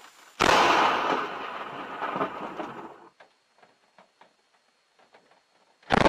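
Two sudden, very loud cracks of close lightning thunder about five and a half seconds apart, the first dying away over a couple of seconds; the second comes with lightning striking trees a short distance away. Light rain ticking on the camera can be heard between them.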